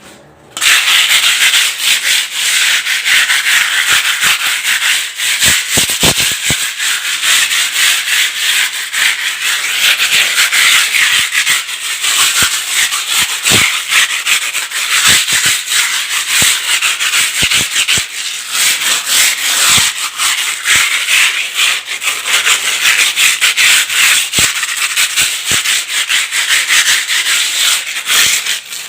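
A hand-held piece of sandpaper scrubbed over a wall to prepare it for painting. It makes a loud, continuous scraping that starts about half a second in and stops just before the end.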